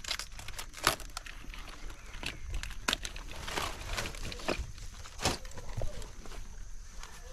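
Crisp crackling and crinkling of cabbage leaves being handled and broken off as heads are harvested, with three sharper snaps about a second, three seconds and five seconds in.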